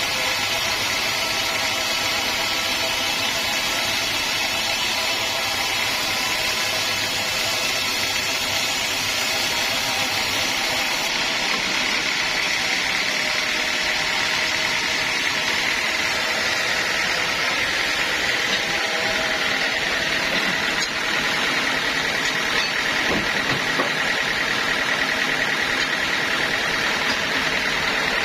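Sawmill machinery running steadily, a continuous mechanical hum and hiss; a higher whine grows stronger about halfway through.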